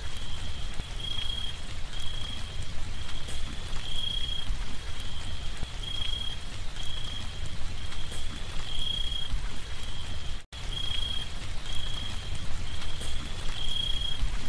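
Steady rain falling on puddles, with a high-pitched chirp repeating about twice a second over it. The sound cuts out for an instant about ten seconds in.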